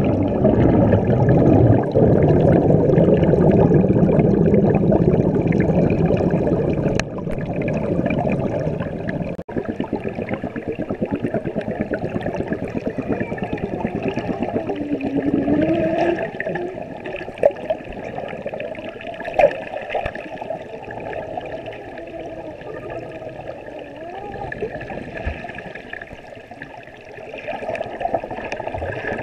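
Underwater churning and bubbling from a child kicking and splashing in a swimming pool, heard muffled through a camera's underwater housing. It is loudest in the first several seconds, then quieter, with a couple of sharp knocks about two-thirds of the way through.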